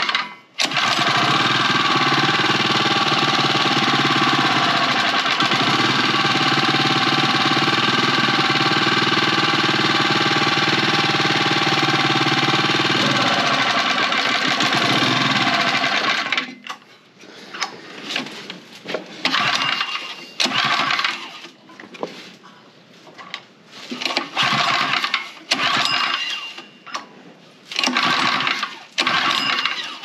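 CMXX 79cc single-cylinder four-stroke engine of a gasoline water pump, pull-started on choke about half a second in after its carburetor was cleaned, running steadily and loudly for about fifteen seconds, then shut off abruptly. Scattered knocks and clatter of handling the engine follow.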